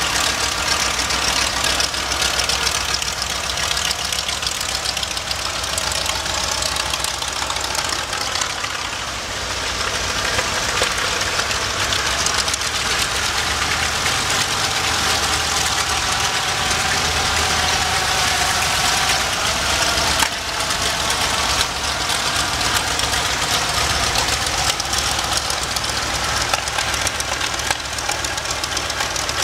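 Nakajima Sakae 14-cylinder radial engine of a Mitsubishi A6M5 Zero fighter running at low power with the propeller turning, a steady drone whose pitch drifts up slightly partway through as the plane starts to taxi.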